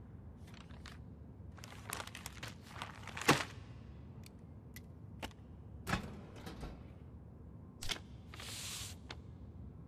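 Newspaper pages rustling and crinkling as the paper is handled, lowered and laid on a table, with a few sharper paper snaps and knocks. The loudest snap comes about three seconds in.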